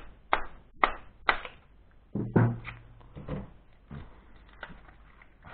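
Sharp knocks and clanks from a microwave oven transformer's steel core laminations being worked loose: three quick ones in the first second and a half, a louder one about two seconds in, then a few lighter taps.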